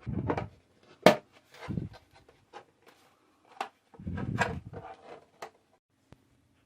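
Plastic UV/LED nail dryer being handled: scraping and rubbing with scattered clicks, and one sharp knock about a second in.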